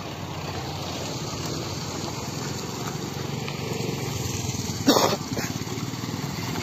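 A small motorcycle-type engine running steadily at low speed with a fast even pulse. About five seconds in there is a single short, loud, sharp sound.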